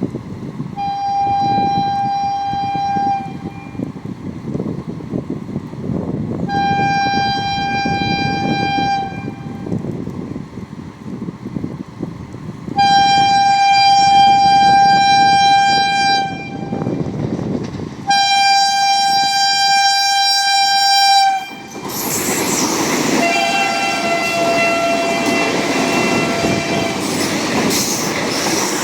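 Indian Railways train horn sounding four long, steady blasts of two to three seconds each over a low rumble. About three-quarters of the way through, a train passes close by with a loud rush and rattle of wheels on the track while a lower-pitched horn sounds.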